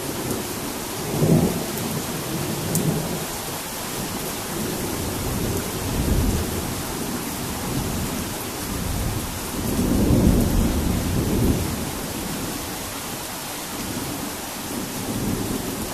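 Steady rain falling in a thunderstorm, with thunder rumbling on and off; the loudest rolls come about a second in and around ten seconds in.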